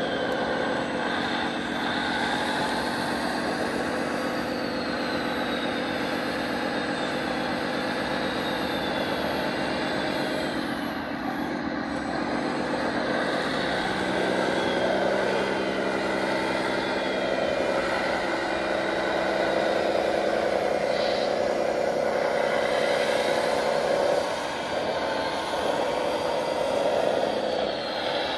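Radio-controlled model wheel loader and trucks running: a steady engine-like drone of several layered tones, with motor whines rising and falling in pitch. The mix of tones changes about halfway through and grows a little louder.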